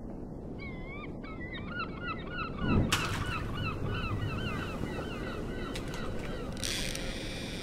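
Seagulls calling over and over in short rising-and-falling cries, with a loud whoosh about three seconds in and a steady low rushing noise underneath; a hiss comes in near the end.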